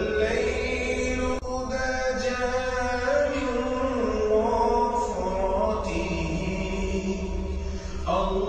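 Background vocal music: a chant-like sung melody with long held notes that slide between pitches.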